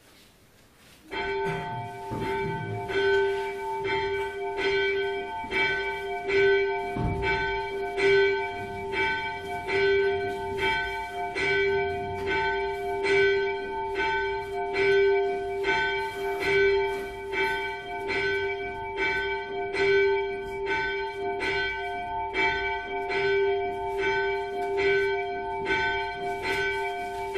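A single church bell struck over and over in an even, quick rhythm, about one and a half strokes a second. Its ring carries on between strokes at one steady pitch. It starts about a second in.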